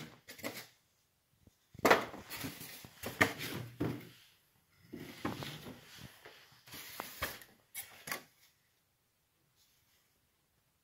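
Foam RC seaplane and its styrofoam packaging being handled: irregular rubbing, scraping and knocks of foam on foam, stopping about eight seconds in.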